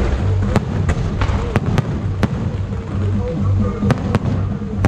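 Aerial fireworks shells bursting overhead in a series of sharp bangs, several in the first two and a half seconds and a few more near the end, over music with a steady low hum.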